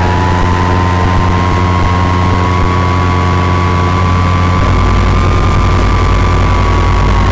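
FPV model aircraft's motor and propeller running steadily under flight power, heard from on board as a continuous whine. The pitch edges slightly higher through the middle and eases back near the end, over a steady low hum and wind noise.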